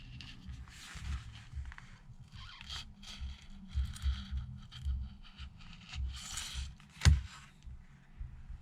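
Irregular scraping and tearing as a prying tool works under the heated iPad screen glass, cutting through the adhesive, with one sharp click about seven seconds in.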